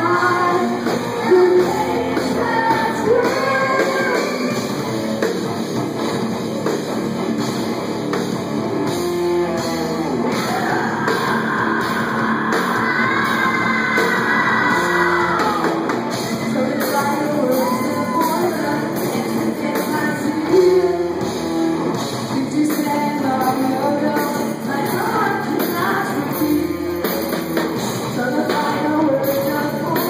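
Live rock band playing, with electric guitar, drum kit and sung vocals, recorded on a cellphone's microphone. A long held high vocal line stands out about halfway through.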